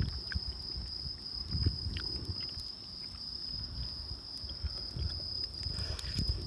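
Night insects chirring in one steady high-pitched drone, over uneven low rumbles and scattered small clicks.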